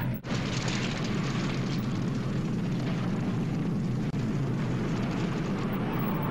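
Film sound effect of a large fire burning: a steady rumble of dense noise, briefly cut off about a quarter second in at an edit.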